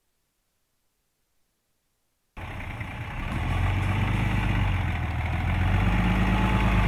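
Dodge Ram pickup truck's engine idling steadily. It comes in suddenly about two seconds in, after near silence.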